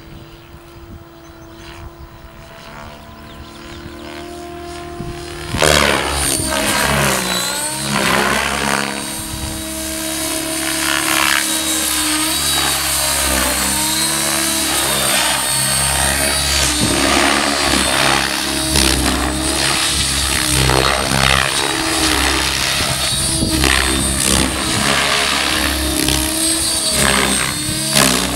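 Electric Blade 700X RC helicopter flying 3D aerobatics: rotor and motor whine, quieter at first, then suddenly loud about six seconds in, its pitch sweeping up and down again and again through flips and passes.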